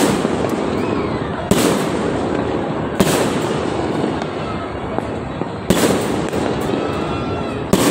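Aerial fireworks bursting overhead: five loud bangs, spaced about one and a half to three seconds apart, over a steady background of crackling.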